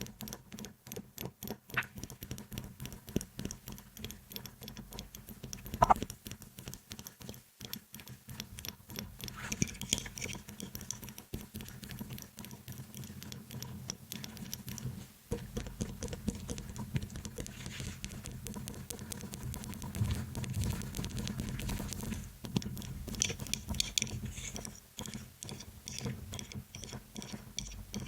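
ASMR trigger sounds close to the microphone: rapid tapping, with stretches of scratching in between and one louder tap about six seconds in.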